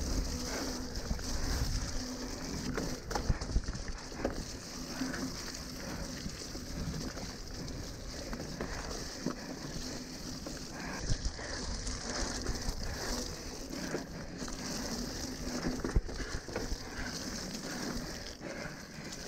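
Mountain bike riding down a wet, muddy dirt singletrack. An irregular clatter of knocks and rattles from the bike sits over a steady rushing noise.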